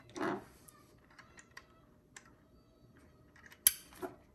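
Light clicks and rustles of the radar detector's power cord and its packaging being handled, with one sharp click about three and a half seconds in and a softer one just after.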